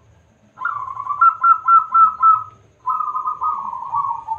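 Zebra dove (perkutut) cooing. It gives two phrases of repeated coo notes: the first ends in a quick run of about five notes, and the second drifts slightly down in pitch.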